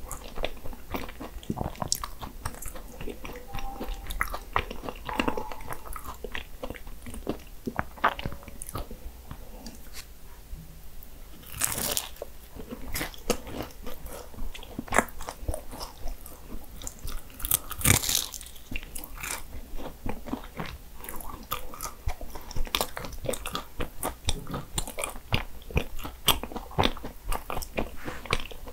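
Eating Portuguese egg tarts (pastéis de nata): the flaky pastry crunches and crackles under bites, with steady chewing. There are two louder crunches, one a little before halfway and one past halfway.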